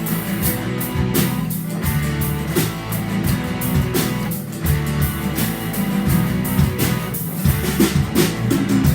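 Live band playing an instrumental passage of a rock song: electric guitar over a drum kit keeping a steady beat, with no singing.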